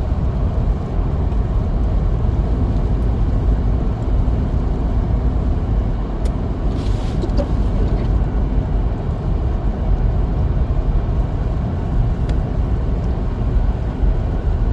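Steady road and engine noise inside a pickup truck's cab while driving on a snow-covered road, a continuous low rumble.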